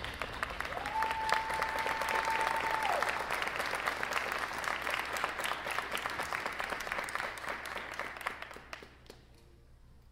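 Audience applauding, with one long whistle from the crowd about a second in; the clapping fades out near the end.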